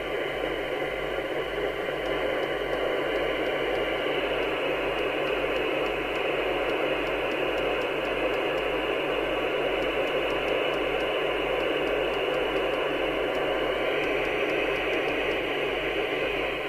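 Harrier CBX FM CB radio's receiver giving a steady hiss from its speaker: FM channel noise with no station transmitting.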